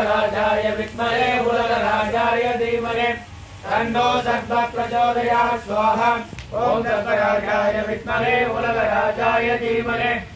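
Male voices chanting Hindu ritual mantras in a sing-song recitation, in long phrases with short breaks about three and six and a half seconds in.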